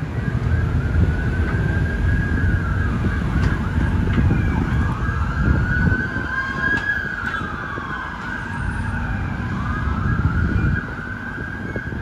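An emergency-vehicle siren wailing slowly up and down, over the low rumble of a wheeled hydraulic excavator's diesel engine working as it digs sand. The rumble drops off suddenly near the end.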